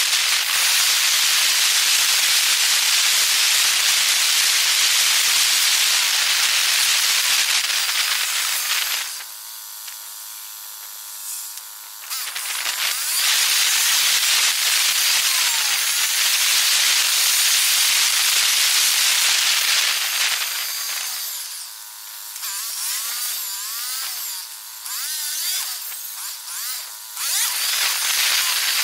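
Wind and road noise on the microphone of a camera moving along a road, fast-forwarded tenfold, so it comes out as a steady high hiss. It drops away for a few seconds about nine seconds in, and in the last third it turns uneven, with quick squeaky pitch glides.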